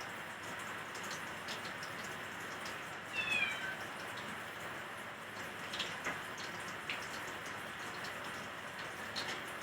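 A cat meows once, a short call falling in pitch about three seconds in, over a steady crackling hiss with scattered small pops of food frying in a pan.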